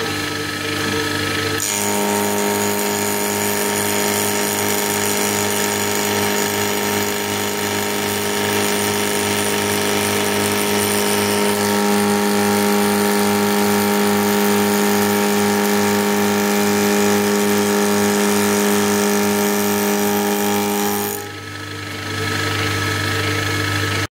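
Old milling machine spinning a homemade cutter with two APMT carbide inserts at 2900 RPM. About two seconds in, the inserts start cutting a shoulder in cold-rolled steel at 13 IPM, a loud steady machining sound with a strong hum. Near the end the cutter leaves the cut and the spindle runs free.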